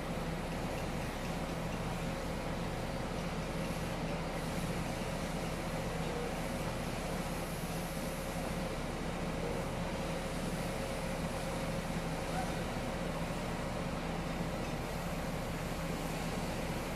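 Heavy machinery running steadily: an even mechanical drone with a constant low hum and a fainter higher hum.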